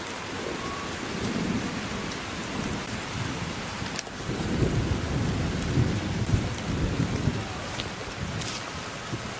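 Thunder rumbling in low swells over a steady hiss of rain.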